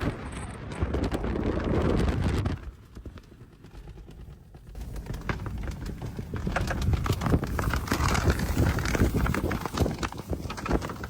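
Strong sandstorm wind gusting and buffeting the microphone with rapid irregular thuds. It eases for about two seconds a few seconds in, then builds up again.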